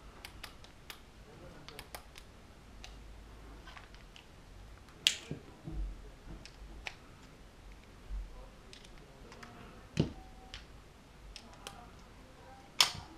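Metal clicks and clacks of a 1911-style pistol's slide and small parts being handled as it is taken apart. Scattered light clicks, with three sharper clacks about five seconds in, about ten seconds in and near the end.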